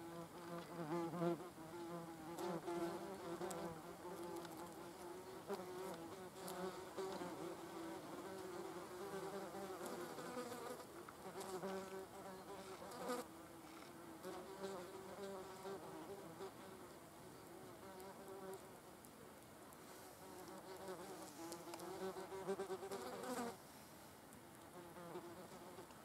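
German wasps buzzing, a wavering wingbeat hum that swells and fades as individual wasps fly in and take off, with a few faint ticks. The buzzing drops away suddenly near the end.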